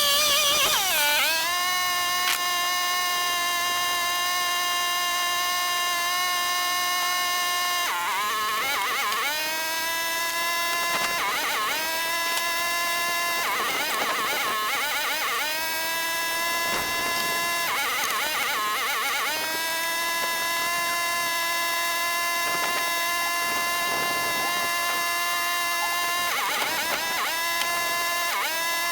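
Wood-Mizer LT35 band sawmill cutting through a cedar log: a steady high-pitched whine from the running mill, which sags and wavers in pitch several times as the cut loads it, then recovers.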